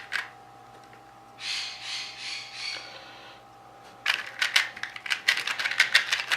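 Dayan 2x2 puzzle cube being turned by hand: a pause with a soft, pulsing scrape about a second and a half in, then rapid, dense clicking of turns from about four seconds in.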